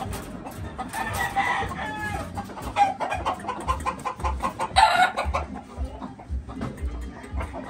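Gamecock roosters crowing and clucking, with a long crow about a second in and a louder burst of calling near five seconds in.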